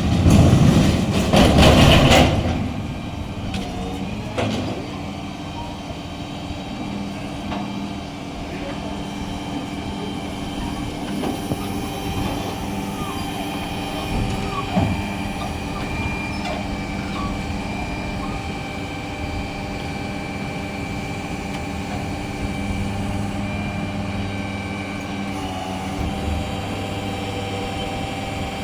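Street ambience: a loud rush of a vehicle passing close for the first two seconds, then a steady engine hum holding several even tones, with people talking faintly in the middle.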